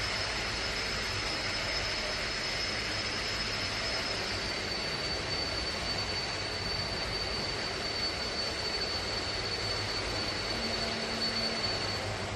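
Steady roar of an industrial gas-fired aluminium melting furnace and its burners, with a thin high whine over it that drops slightly in pitch about four seconds in.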